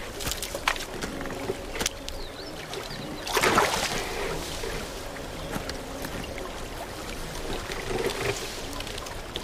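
Shallow lake water lapping and splashing around driftwood as a brown bear moves along the log and through the water, with a few light knocks and one louder splash about three and a half seconds in.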